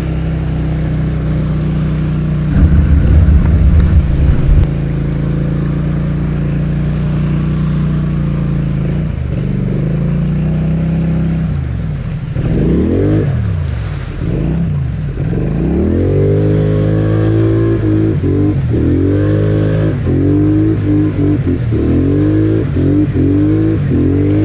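ATV engine running steadily while wading through deep flood water, with a loud low rumble for about two seconds near the start. From about halfway the engine revs rise and fall in quick sweeps, repeating about once a second near the end as the throttle is worked through the water.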